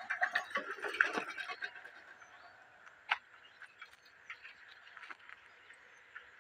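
A steady chorus of animal calls, with a flurry of rapid clicking calls in the first second and a half and a single sharp click about three seconds in.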